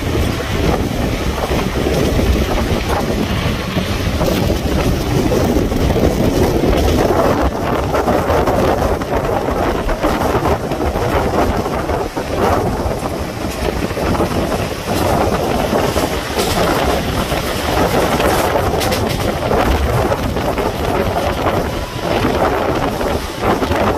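Wind rushing over the microphone from a moving passenger train, over the train's steady running rumble.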